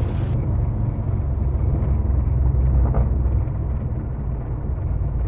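Lancair 360's four-cylinder Lycoming engine idling through the landing rollout, a steady low rumble with wind and runway noise in the cockpit, power pulled back. It cuts off suddenly near the end.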